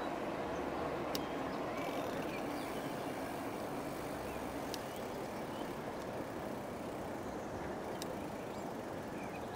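Steady rushing noise of an e-bike ride: tyres rolling and air moving past the microphone, with a few faint clicks.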